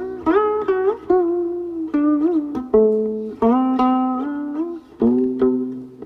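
Solo guqin, the Tang-dynasty qin 'Jiuxiao Huanpei', plucked in a run of about a dozen notes that ring and fade. Several notes bend up or down as the left hand slides along the string, and one wavers in pitch just after two seconds in.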